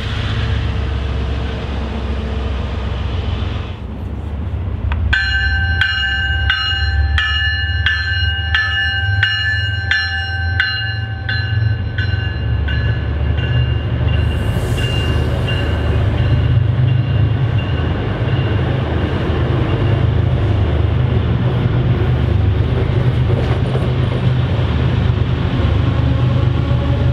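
MBTA commuter train's diesel locomotive running with a steady low rumble. Its bell rings about twice a second for several seconds, starting about five seconds in, then fades out, with a brief hiss midway.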